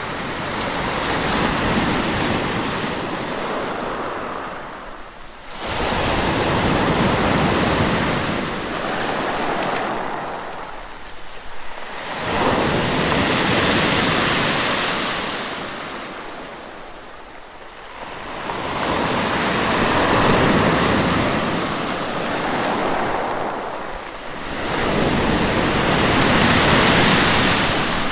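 Sea waves washing onto a shore in slow surges, one about every six seconds, each coming in quickly and fading out slowly.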